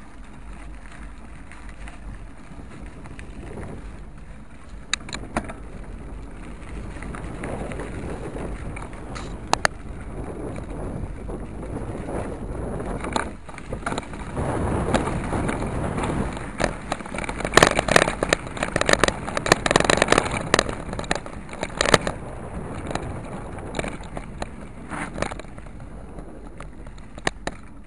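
Wheels rolling over a rough dirt and gravel road, with wind on the microphone and a clatter of knocks and rattles from the bumps. The rumble and clatter build to their loudest and busiest a little past the middle.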